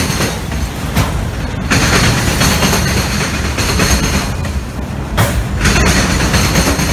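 Freight train rolling past, a steady rumble and rattle of cars and wheels on the rails.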